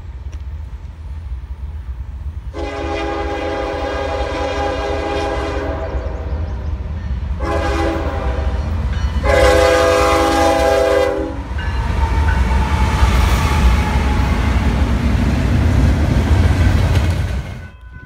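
Norfolk Southern diesel freight locomotive's multi-note air horn sounding for a grade crossing: a long blast, a short blast, then another long blast. The lead locomotives then pass close by with a loud, heavy rumble of engines and wheels.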